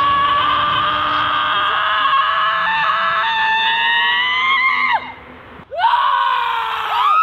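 Women's voices screaming in long, high held cries. The cries slide down in pitch and break off about five seconds in, then new cries swoop up and fall near the end.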